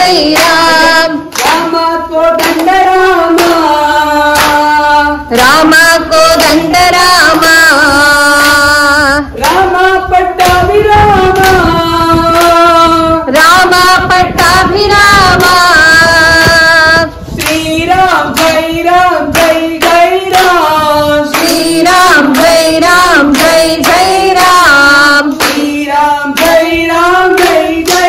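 Group singing a Rama bhajan chant, female voices leading, with steady hand-clapping in time.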